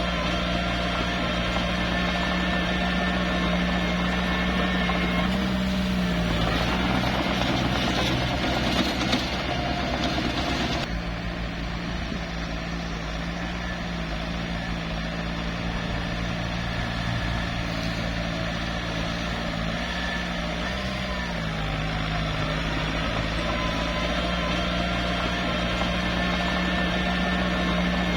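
Small bulldozer's diesel engine running steadily under work, its pitch shifting slightly now and then. A rougher, noisier stretch comes from about six to eleven seconds in.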